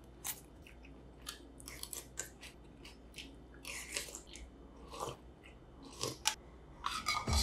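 A person eating: soft chewing with small crunches and mouth clicks, and a short slurp of soup from a spoon about four seconds in.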